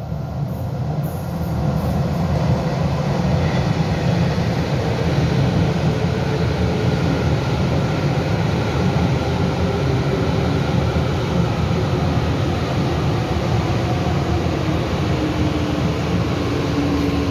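TEMU2000 tilting electric multiple unit running through an underground station platform: a loud, steady rumble of wheels and running gear that builds over the first two seconds. Near the end a faint whine falls in pitch.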